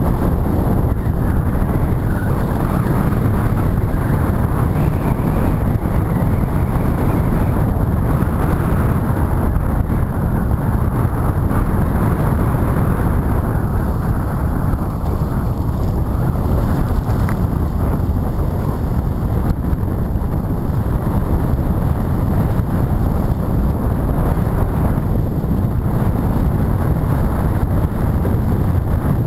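Steady wind rumble buffeting the microphone, with water rushing and splashing past the hull of a HOOT sailing dinghy moving fast through choppy waves.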